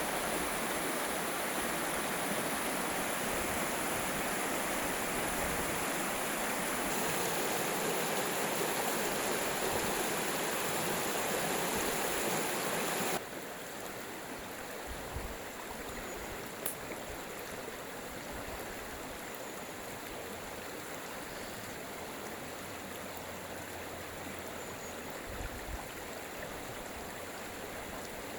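Stream water running in a steady rush. About 13 seconds in, it cuts abruptly to a quieter, softer flow with a few faint clicks.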